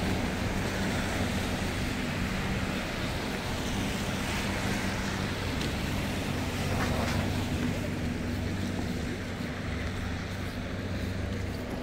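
Street traffic on a snow-covered road: cars passing with a steady hiss of tyres on wet snow and a low engine hum.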